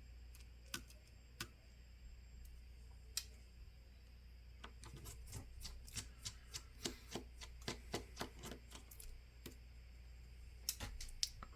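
Faint small clicks and ticks of a 00 Phillips precision screwdriver backing tiny screws out of a phone's back frame, with a quicker run of clicks in the middle.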